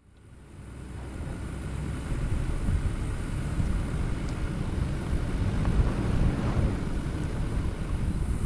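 Toyota Tacoma pickup driving off-road: a low, uneven rumble of engine and tyres over rough ground, with some wind noise on the microphone. The sound fades in over the first couple of seconds.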